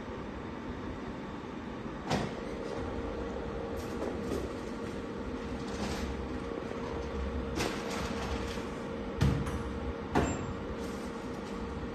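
Automatic soldering machine running: a steady mechanical hum with a faint whine, broken by several sharp clunks, the two loudest close together near the end.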